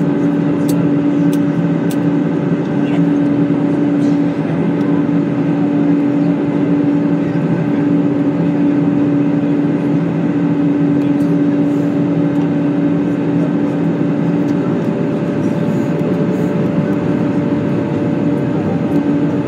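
Cabin noise inside an Airbus A320 airliner in descent: a steady rush of airflow with the even drone of the engines. About 15 seconds in, the engine hum's pitch shifts slightly.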